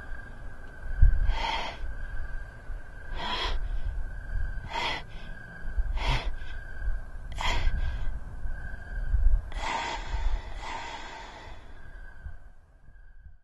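A man's gasping breaths, about seven in a row, one every second or two. Under them run a steady high tone and a low rumble, and everything cuts off at the very end.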